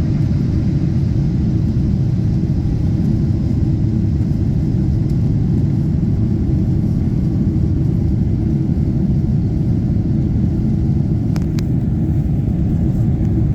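Steady low rumble of an airliner's jet engines and rushing air, heard from inside the passenger cabin. A couple of faint clicks come near the end.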